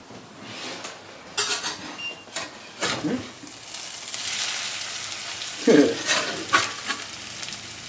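Shredded-potato hash browns frying and sizzling in a buttered pan. A metal spatula clicks and scrapes against the pan, with a few sharp knocks early on and scraping strokes later.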